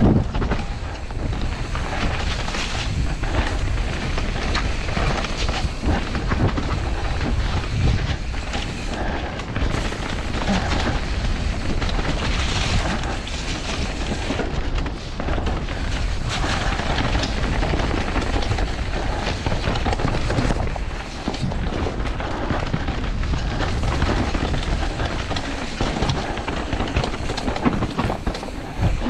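Mountain bike descending a rough dirt trail at speed: a continuous rumble of tyres over dirt and roots, with the bike rattling and knocking throughout and wind buffeting the microphone.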